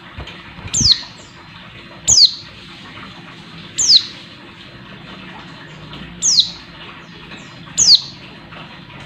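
A female white-eye (pleci) gives short, high calls that slide sharply downward, five in all, one every couple of seconds. There are a couple of soft low thumps early on from the bird moving on its perch.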